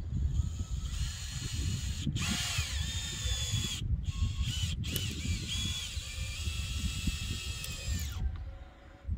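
Power drill running in several bursts, its motor whine rising and falling in pitch as the trigger is worked. It starts about a second in, cuts out briefly three times, and winds down about a second before the end.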